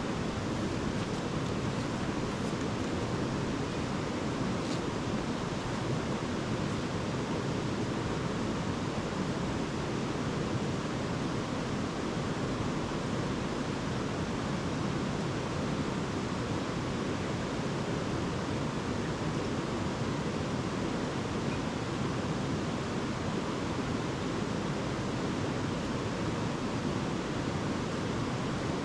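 Steady, unbroken rush of a river flowing over its bed.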